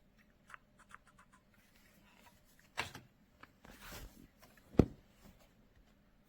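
Handling noise: scattered light clicks and a short rustle, then one sharp knock about five seconds in.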